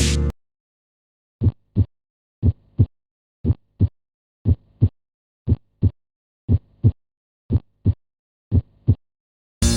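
Recorded human heartbeat at about 60 beats a minute: eight evenly spaced 'lub-dub' pairs, the first and second heart sounds (S1 and S2), with a short gap within each pair and a longer pause between pairs. Only two sounds per beat, the pattern of normal heart sounds.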